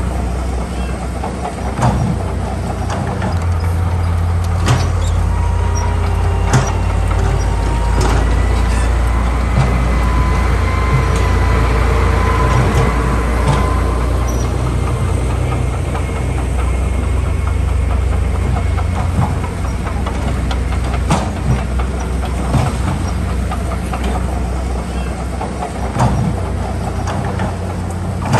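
Heavy diesel earthmoving machinery working: a deep, steady engine drone that swells through the middle, with a faint high whine there and scattered metallic clanks and knocks.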